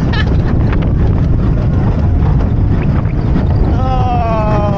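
Wind rushing over the microphone and the rumble of the Mack Rides launch coaster train running along its track. From about four seconds in, a whine falls slowly in pitch as the train runs onto the brake run and slows.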